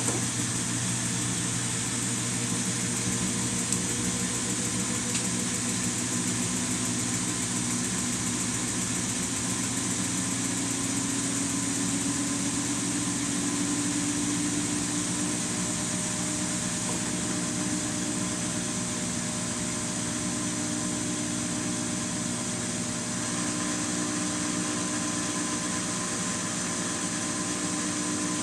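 Samsung washing machine running, its motor and drum giving a steady hum and whine, one tone rising slightly in pitch partway through.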